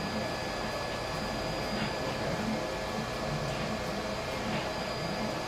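Clay 3D printer built on a CNC gantry running as it extrudes a clay cylinder: a steady mechanical hum and hiss with two thin, steady whining tones.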